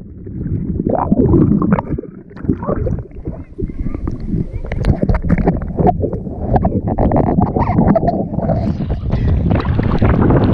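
Water rushing and gurgling around a GoPro camera plunged underwater, heard muffled and full of bumps and bubbling. About eight seconds in the sound clears as the camera breaks the surface, with splashing water.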